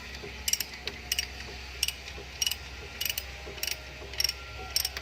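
Ratchet wrench clicking, one short burst of clicks about every 0.6 seconds, eight times, as the bolts securing the drive-belt adjuster are tightened. A faint steady low hum lies underneath.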